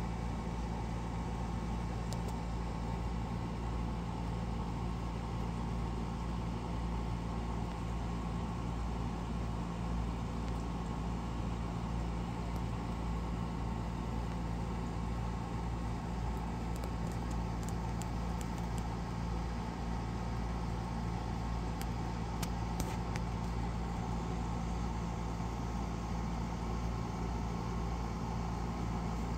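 Steady low machine hum with an even background hiss, and a few faint ticks in the middle.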